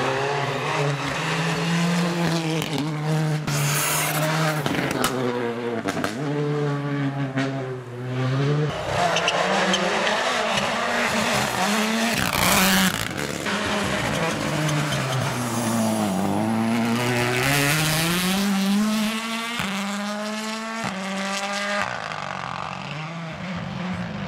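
Rally cars at speed, among them a Hyundai i20 N Rally2 and a Toyota GR Yaris Rally1, their 1.6-litre turbocharged four-cylinder engines revving hard up and down through quick gear changes, with several sharp cracks.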